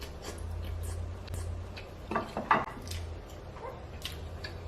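A person eating: chewing with wet mouth clicks and smacks, a few louder ones about two seconds in, over a low steady hum.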